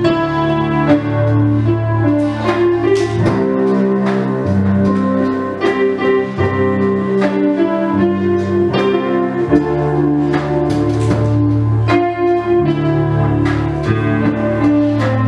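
Piano playing slow, held chords as instrumental worship music, with no singing.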